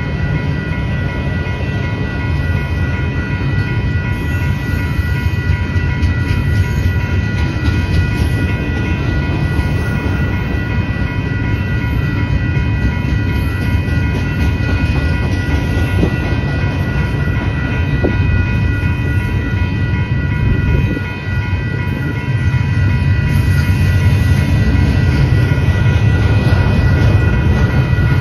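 Freight train rolling through a grade crossing: a steady deep rumble and wheel clatter as autorack cars and then double-stack container well cars go by. Over it runs a steady high ringing from the crossing's warning bell.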